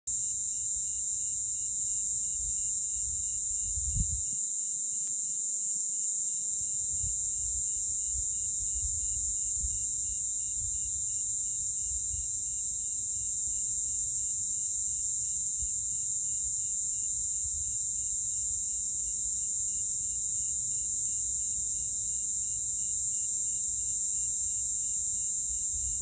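Insect chorus, which the uploader calls cicadas: a steady, unbroken high-pitched drone with a fainter, finely pulsing trill beneath it. A low rumble runs underneath, with a single bump about four seconds in.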